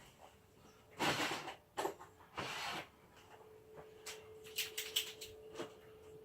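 Two short scratchy strokes of a marker pen marking a clutch cover bolt hole, followed a couple of seconds later by a few light clicks, with a faint steady hum underneath.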